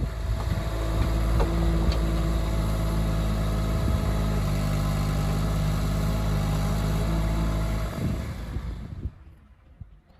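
An engine running steadily at an even speed, then dying away about eight seconds in.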